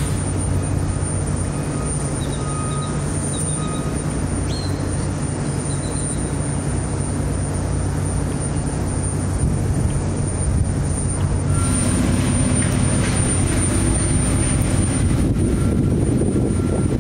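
Diesel engine of heavy construction machinery running steadily, with a few short high beeps now and then. A little past halfway the engine sound grows louder and its pitch shifts up.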